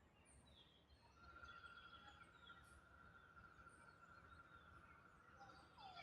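Faint wild birdsong: several birds give short, high chirps that drop in pitch. About a second in, a steady, thin high tone begins and holds for most of the rest.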